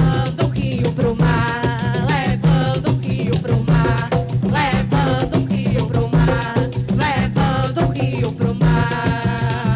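Live coco de roda band music: drums and a shaker rattle keep a busy rhythm under a wavering melodic line.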